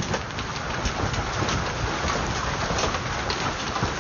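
Hailstorm: a steady rush of falling hail and rain with scattered sharp clicks of hailstones striking the ground and the car, over a low rumble of wind on the microphone.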